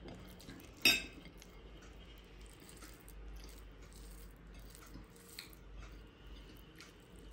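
One sharp, ringing clink on a ceramic dinner plate about a second in, then faint small clicks and rustling as fingers mix rice and curry on the plate.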